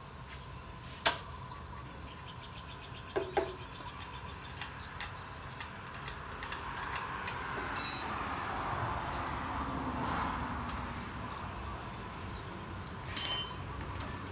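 Metal tools and parts being handled: a sharp click about a second in, a scatter of lighter ticks, and two ringing metallic clinks, the second near the end, over a steady faint background hum.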